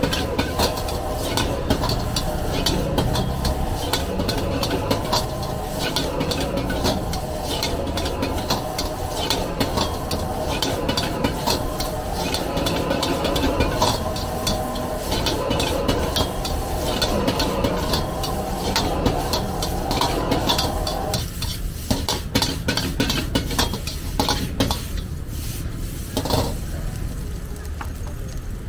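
Metal ladle rapidly scraping and clanking against a wok as fried rice is stir-fried and tossed, with sizzling. A steady hum underneath stops about three-quarters of the way through, and the ladle strokes become sparser after it.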